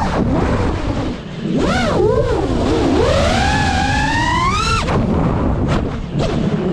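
GEPRC Mark5 FPV quadcopter's brushless motors whining, the pitch rising and falling with throttle, over a low rush of wind. The whine climbs steadily for about two seconds and cuts off suddenly near the middle as the throttle is chopped.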